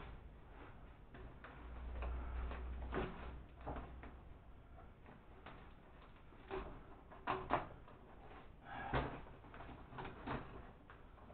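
Rustling and crinkling of a woven plastic feed sack, with scattered clicks and taps, as it is fastened with wire around the outlet of a feed mill that is not running. The handling noises come in irregular bunches, busiest in the second half.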